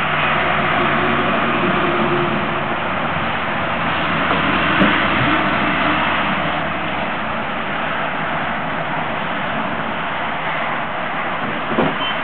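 Steady rushing noise with a low hum, the kind made by a moving vehicle, with a couple of short knocks, one near the end.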